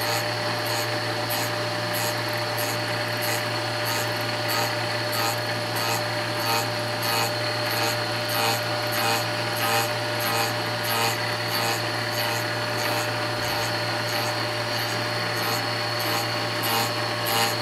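Rose engine lathe's belt-driven cutting frame cutting the side of an ash workpiece: a rasping scrape that comes and goes about twice a second as the slowly turning work rocks into the cutter, over a steady machine hum.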